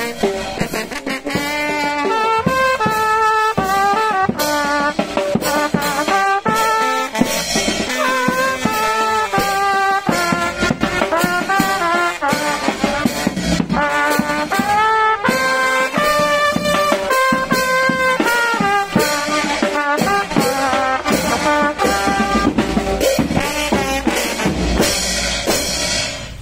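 Vietnamese kèn tây funeral brass band playing a melody on trumpets and other brass, with regular drum and cymbal strikes. The music stops at the very end.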